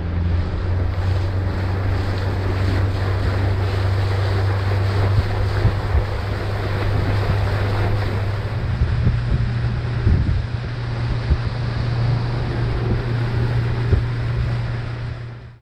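Outboard motor running as a boat travels across open water: a steady low drone that steps up in pitch a little about halfway through, with wind buffeting the microphone and water rushing past the hull.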